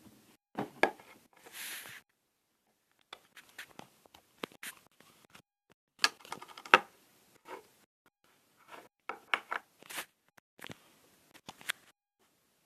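Slime being squeezed and played with by hand: scattered small sticky clicks, pops and crackles, loudest about six seconds in, with a short scrape near the start.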